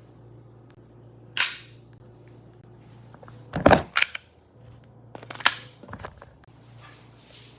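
WE G26 Advanced airsoft pistol firing about five sharp shots at uneven intervals: one, then two pairs a half-second apart, rather than a steady string.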